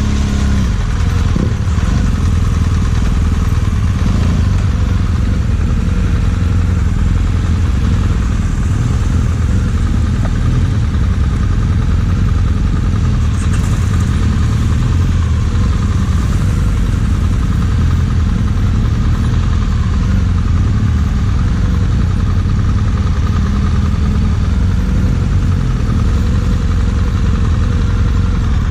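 BMW GS adventure motorcycle engine running steadily at low revs while the bike is ridden at a crawl on dirt.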